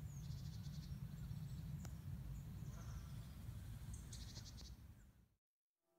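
Faint riverside ambience: small birds chirping, with two short, rapid, high trills about half a second in and about four seconds in, over a low steady rumble. It fades out shortly before the end.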